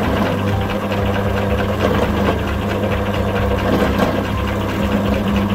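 Bench drill press running with a steady hum while its bit drills a small hole through the top of a cast silver pendant.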